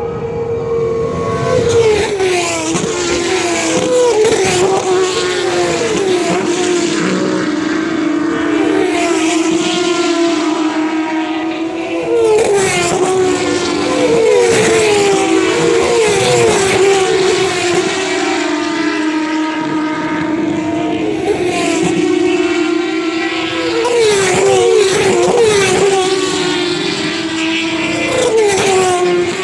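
Turismo Carretera and TC Pista race car engines running hard as the pack circulates, a steady loud drone broken by clusters of falling pitches as cars go by, about two seconds in, around twelve to fourteen seconds, and again near the end.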